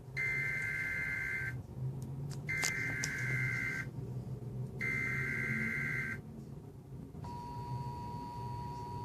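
Emergency Alert System broadcast through a TV: three bursts of the SAME digital header, the data warble that codes the alert, each lasting about a second and a half with a short gap between them. About seven seconds in, the steady two-tone EAS attention signal begins.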